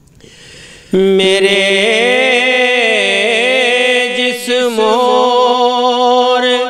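A man singing a naat unaccompanied: after a short breath he draws out the word 'mere' in one long, ornamented phrase lasting about six seconds.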